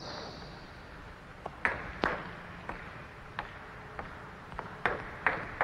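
Table tennis balls clicking during backspin-serve practice: a bat striking the ball and celluloid balls bouncing on the table and the wooden floor, in a string of sharp ticks at uneven intervals.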